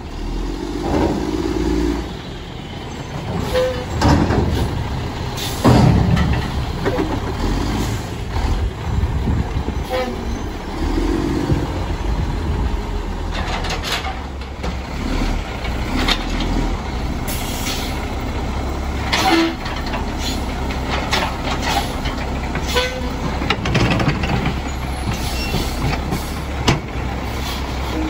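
Mack MR front-loader garbage truck running, its low engine rumble steady under a series of sharp metal bangs and clanks spread through the stretch.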